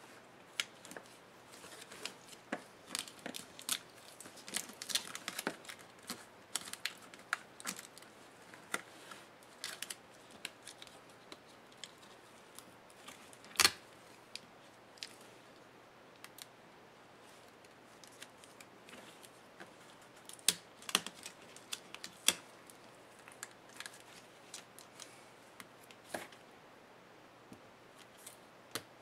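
Hands peeling adhesive tape and handling a laptop LCD panel and its flat cable: scattered light clicks, taps and crinkles of plastic and tape, with one louder sharp click about halfway through.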